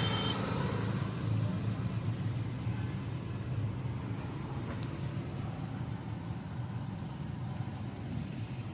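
Steady low rumble of a motor vehicle, with a single sharp click about five seconds in.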